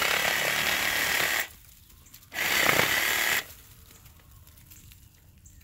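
Power saw running in two bursts of about a second and a half each, cutting through a branch, with a short pause between them.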